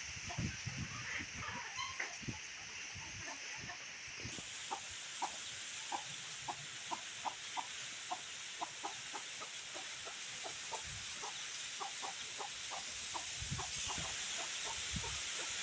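Chickens clucking, a run of short calls at about three a second, over a steady high hiss.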